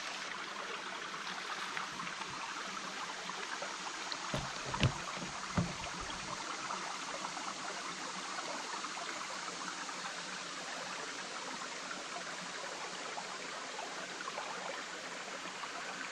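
Shallow mountain creek running steadily over rocks. Three short thumps about four to six seconds in.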